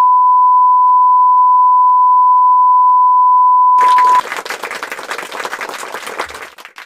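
A loud, steady electronic beep, one pure unchanging tone, held for about four seconds and cut off abruptly. Just before it stops, a hissing, crackling noise comes in and fades out near the end.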